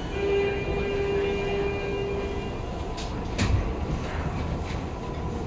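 Y500 series train running through a tunnel, heard from the gangway between cars: a steady rumble under the electric traction motors' whine, which holds one pitch and then stops about two and a half seconds in. A couple of sharp wheel knocks come about three seconds in.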